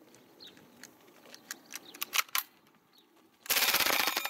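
A few sharp single clicks, then near the end a short full-auto burst from a KWC Uzi replica CO2 BB airgun, a rapid rattle of shots lasting under a second.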